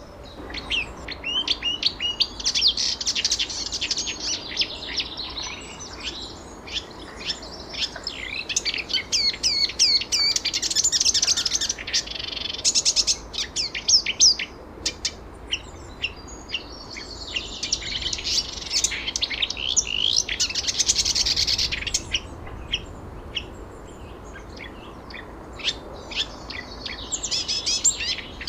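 Several songbirds singing and chirping at once, high rapid chirps and trills coming in busier, louder flurries that ease off between them.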